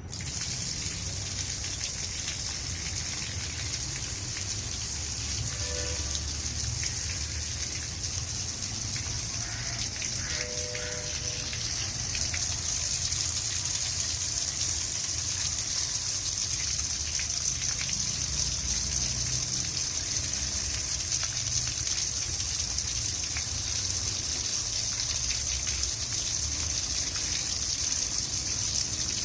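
Tap water gushing in a steady stream onto a small homemade model water turbine.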